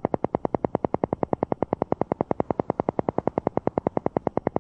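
Alpha-wave isochronic tone: a synthesized tone switching on and off in a rapid, even pulse of about ten beats a second.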